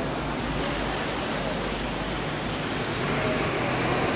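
Steady hiss of rain and tyres on a wet street, with a motor vehicle's engine growing louder near the end.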